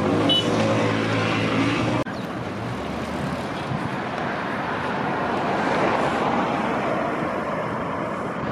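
Road traffic noise: cars and trucks passing steadily on a busy road, swelling a little midway. Before it, in the first two seconds, a pitched engine drone cuts off abruptly.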